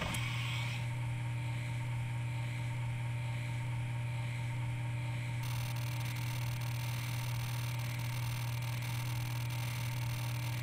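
Simulated spindle sound of CNC simulator software running a milling program: a steady machine hum that starts as the program starts, with a hiss above it that grows brighter about five seconds in.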